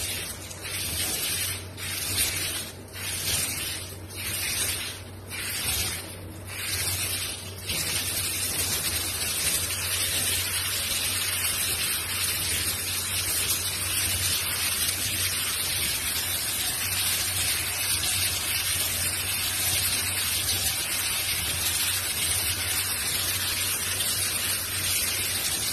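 Handheld shower head spraying water onto a golden retriever's wet coat: a steady hiss that dips about once a second for the first seven seconds or so, then runs evenly.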